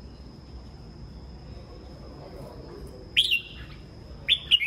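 Red-whiskered bulbuls calling: two short, loud calls, the first a little over three seconds in and the second near the end, over a faint steady high whine.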